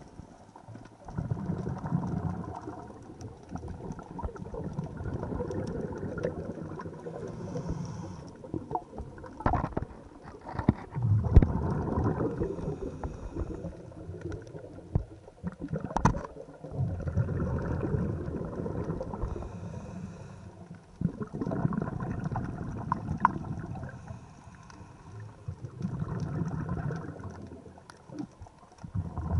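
Scuba diver breathing underwater: exhaled bubbles from the regulator rumble and gurgle in bursts of a second or two, about every five seconds, with quieter pauses between breaths.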